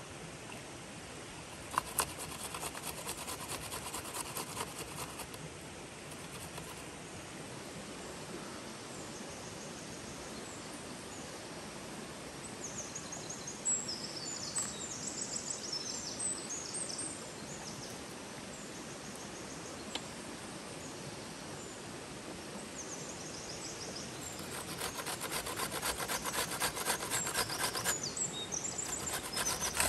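Rhythmic rasping strokes of vegetables being grated by hand on a stainless-steel box grater into a wooden bowl: onion briefly near the start, then a red vegetable from about 24 s, getting louder toward the end. Birds chirp in the middle over the steady rush of a stream.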